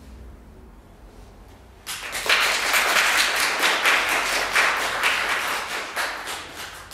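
Applause, starting about two seconds in once the harp piece has ended, and fading out near the end.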